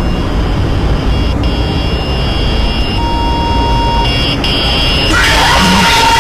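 Loud, steady low rumbling drone with faint thin high whining tones over it. About five seconds in, a harsh hissing burst with a wavering whine in it cuts in and lasts about a second and a half.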